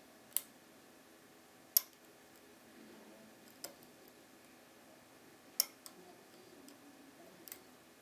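Steel hook pick working the pin stacks of a cutaway brass TESA T60 euro cylinder held under a tension wrench: about six small, sharp metallic clicks at uneven intervals, the loudest a little under two seconds in and just past halfway.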